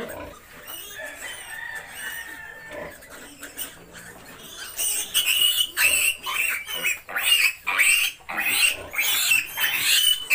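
Ten-day-old piglet squealing while being handled for a vitamin injection. Fainter calls at first, then loud, repeated squeals from about halfway through.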